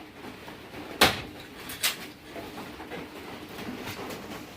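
Firewood being chopped: two sharp wooden strikes, the first about a second in and the louder of the two, the second just under a second later.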